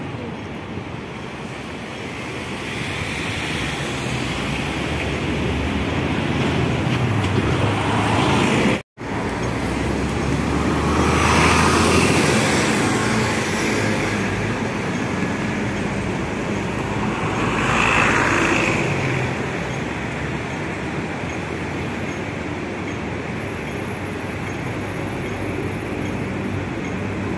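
Busy city street traffic: a steady wash of road noise, with vehicles passing louder twice in the middle. The sound cuts out for an instant about nine seconds in.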